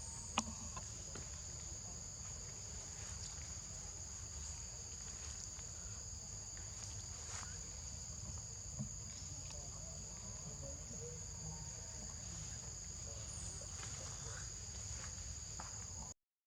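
Insects droning steadily in two high, unbroken tones over a low rumble, with a few faint clicks.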